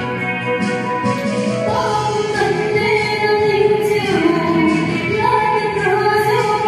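A woman singing a church song into a microphone, with long held notes.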